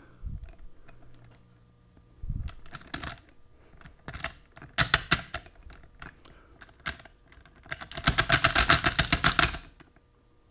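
Steel clutch plates and discs of a Dana 44 Powr-Lok limited-slip differential clicking and clinking as they are handled and lifted out of the case by hand. Scattered single clicks give way near the end to a quick rattling run of clicks lasting about a second and a half.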